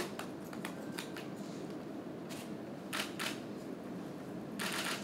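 Press camera shutters clicking over steady room noise: a few scattered single clicks, then a quick burst of rapid clicks near the end.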